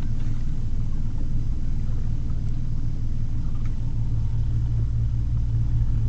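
Boat's bow-mounted electric trolling motor running, a steady low hum carried through the hull.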